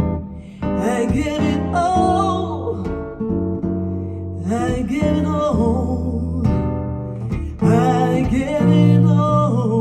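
A guitar-led pop song played back through Yamaha NS-1000M loudspeakers, with wavering melodic lines over sustained chords, ending in a held low chord near the end.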